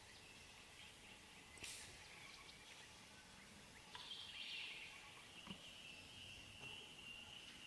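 Near silence: quiet bush ambience, with a brief hiss near two seconds in and a faint, steady, high-pitched call from a bird or insect starting about halfway through and carrying on.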